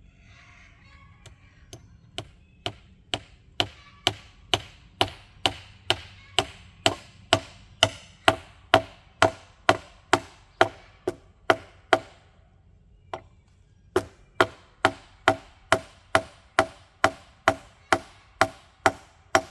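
A nail being driven into a wooden trellis brace with a makeshift striker that is heavier than a hammer, used because no hammer was brought. Steady strikes come about two a second, each ringing briefly. The strikes pause about twelve seconds in, with one lone strike, then start again.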